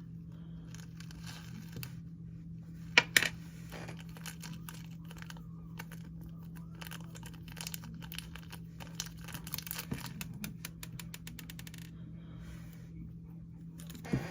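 Slime being handled by hand: sticky crackling and small pops, thickest in the second half. There is a sharp double knock about three seconds in and another near the end, over a steady low hum.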